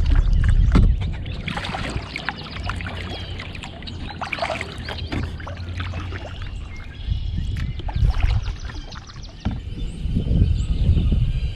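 Water splashing and sloshing around a kayak, full of short crackling ticks, over a low rumble that comes and goes.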